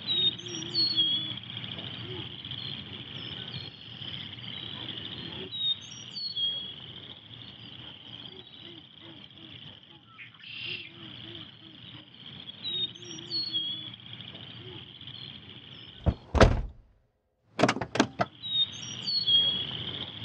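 Night ambience: a steady high insect drone, like crickets, with short repeated bird chirps and low repeated calls. About three-quarters of the way in, a loud bang is followed by a moment of dead silence and then a few sharp knocks.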